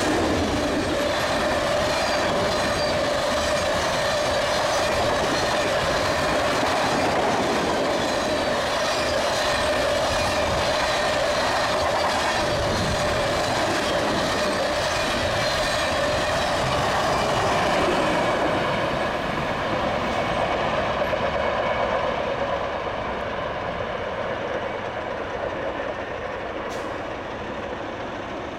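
Freight train of oil tank cars rolling past at speed: a steady rush of wheels on rail with a constant ringing tone riding over it. It grows quieter in the last third as the end of the train passes and moves away.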